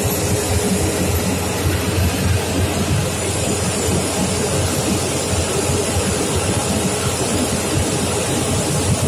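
Boeing 787 airliner's turbofan engines running at taxi power as it rolls past: a steady rumbling jet noise with a thin steady whine over it.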